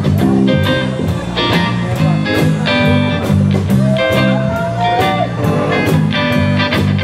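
Live band playing: an electric bass riff over a drum kit, with electric guitars, and a single held note that slides up slightly about four seconds in.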